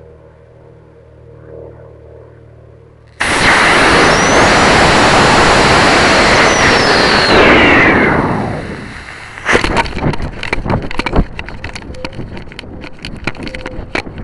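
Model rocket's solid-fuel motor igniting suddenly about three seconds in, a loud steady rushing burn for about four seconds that fades out as the motor burns out. Then irregular crackling and buffeting of wind on the rocket-mounted camera's microphone as the rocket coasts and tumbles.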